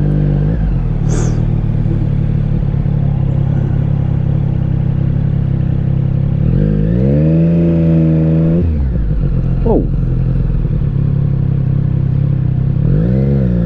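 Triumph Street Triple 765RS's three-cylinder engine running under way at steady revs. About six and a half seconds in it revs up, holds the higher note for a couple of seconds, then drops back, with another short rise near the end.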